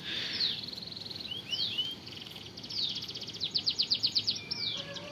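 Small birds singing: quick falling whistled notes, a few short rising chirps, and fast rattling trills, the loudest trill about three and a half seconds in. Faint low background noise lies under the song.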